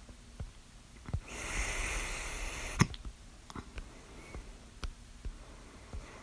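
A person hiccuping: a string of short, sharp hiccups at uneven gaps, the loudest about three seconds in, just after a breathy hiss lasting about a second and a half.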